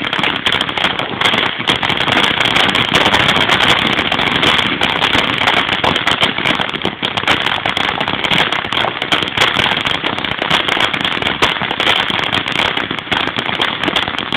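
Ground fountain firework spraying sparks: a steady, dense crackle of many small rapid pops over a rushing hiss.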